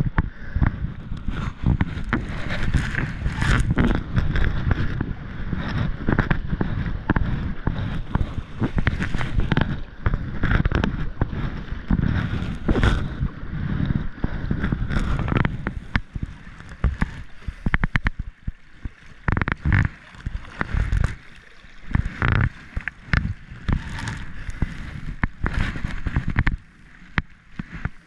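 Rough river water rushing and sloshing against a kayak's hull as it runs a riffle, with many sharp splashes and knocks from paddle strokes. The rush eases about halfway through, leaving quieter, separate splashes.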